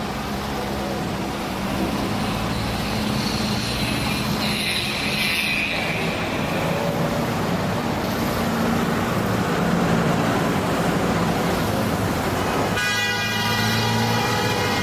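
Road traffic: car engines running with horns honking. A steady pitched horn blast holds through the last two seconds.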